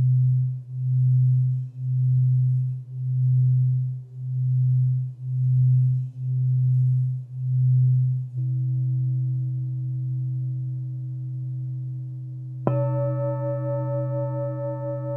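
Alchemy crystal singing bowl for the root chakra sounding a steady low tone that swells and fades about twice a second. Its pulsing evens out about halfway through as a higher tone joins. Near the end a higher bowl is struck once and rings with several overtones and a slight wobble over the held low tone.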